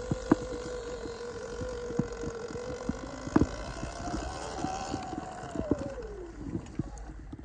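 Electric dirt bike motor whining: steady at first, rising in pitch about four seconds in, then falling away about six seconds in as it slows. Scattered knocks and clicks and a low rumble underneath.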